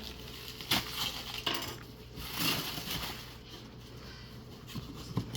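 An old cardboard train box being handled and opened by hand: a few sharp clicks and knocks with a stretch of rustling cardboard and paper in between.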